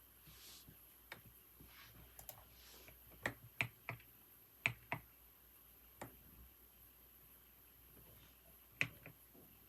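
Computer keyboard keys pressed in a sparse, irregular run: about a dozen separate sharp clicks with pauses between them, the loudest bunched a little before the middle and a final pair near the end.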